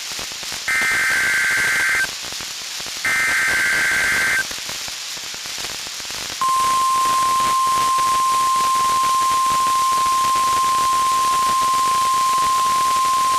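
NOAA Weather Radio SAME digital header bursts, two short warbling data bursts each about a second and a half long, with radio static hiss between them. About six seconds in, the steady 1050 Hz weather radio warning alarm tone starts and holds unbroken: the station's weekly test of its alert tones.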